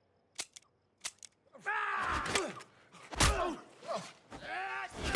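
Action-film fight sound: a few sharp clicks, then a man's strained yelling and grunting with heavy thuds of blows, the loudest about three seconds in and at the end.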